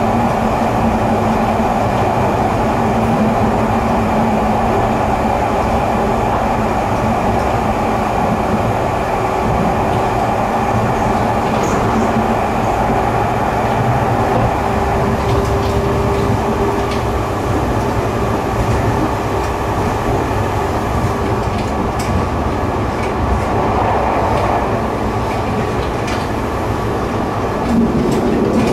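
Tobu Noda Line electric train running at speed, heard from inside the carriage: a steady rumble of wheels and running gear, with a faint whine in the middle and a few sharp clicks near the end.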